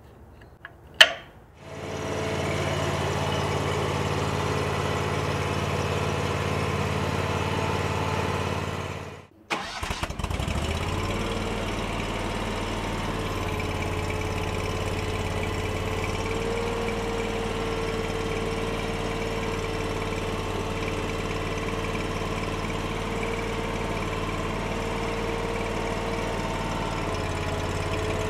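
A sharp click, then the engine of a compact tracked utility loader starting up and running steadily. It cuts off abruptly partway through and is soon running again, steady, with a higher hum over the engine note.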